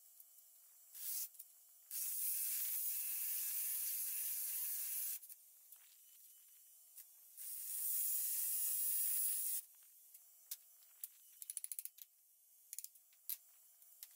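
A handheld power tool cutting into the old barn's wood with a buzz, in two bursts, about three seconds and then two seconds long. A quick scatter of light knocks and taps follows.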